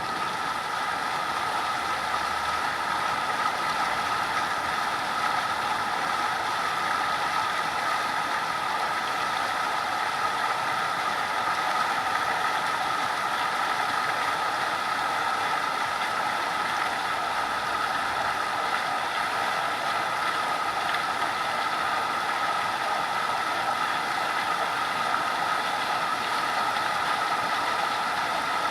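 Heavy thunderstorm rain falling steadily and evenly onto a flooded backyard.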